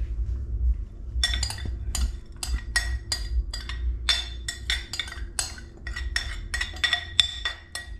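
Metal spoon scraping and tapping against the inside of a glass mixing bowl as sauce is spooned out: a quick, irregular run of ringing clinks that starts about a second in.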